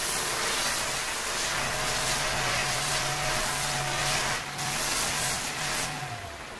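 Electric angle grinder with an abrasive sanding pad running against the edge of a marble countertop: a steady motor whine over the hiss of the pad on the stone. Near the end the motor's pitch sags and the sound drops briefly.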